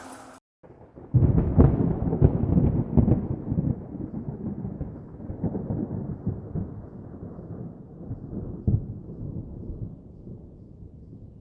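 A deep, loud rumble with crackling strikes begins about a second in after a brief silence, then slowly fades away.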